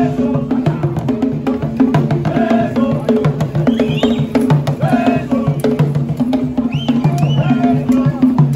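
Live street-parade drumming with a steady repeating beat, with voices chanting and calling over it.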